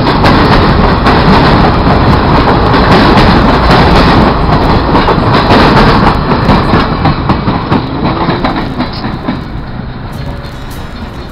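Passenger train coaches rolling past close by: a steady rumble of steel wheels on rails with quick clicks from the wheels crossing rail joints, fading in the last few seconds as the train pulls away.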